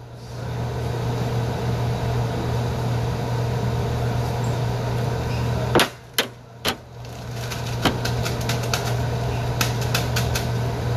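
A steady mechanical hum with a hiss over it, broken about six seconds in by a few sharp knocks, then a quick run of light clicks and ticks near the end from handling in the pot.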